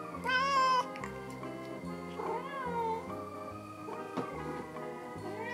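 Domestic cat meowing close to the microphone: a loud wavering meow right at the start, a second meow rising and falling about two seconds in, and a third beginning at the very end. Background music with steady low notes runs underneath, and a single light tap sounds about four seconds in.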